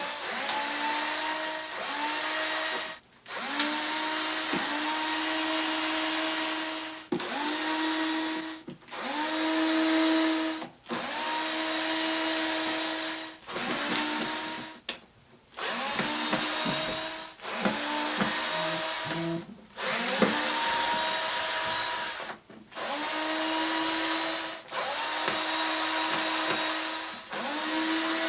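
Power drill/driver running in a series of short bursts, about a dozen, each spinning up to speed with a quick rising whine and then holding steady before stopping, as when driving out screws one after another.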